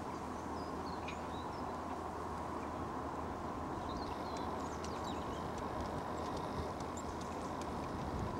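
Steady outdoor background noise, with a few faint, short, high bird-like chirps.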